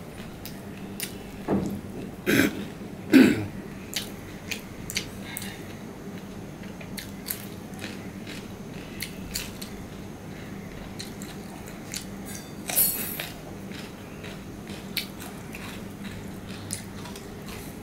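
A man eating with his fingers from a steel plate: chewing, small crunches and light clicks of food being mixed and bitten. Three louder throaty sounds come close together about two to three seconds in, and another louder crunch comes near the middle.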